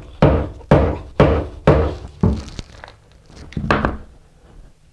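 Heavy thuds of a 2x4 screed board being struck to pack it down into damp sand-mix mortar, six blows about two a second, then a few lighter knocks, the last about three and a half seconds in.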